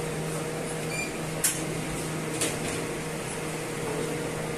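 Steady machine hum in a kitchen, with two sharp clicks about a second apart, the kind of knocks that plates or trays make.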